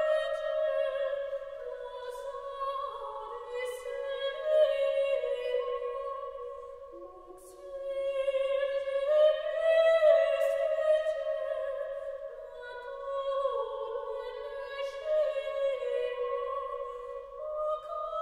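Background music: operatic singing, a high voice holding long notes that change pitch slowly, with a dip in loudness about halfway through.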